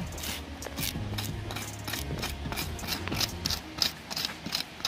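A knife scraping scales off a tarpon in quick repeated rasping strokes, about three to four a second.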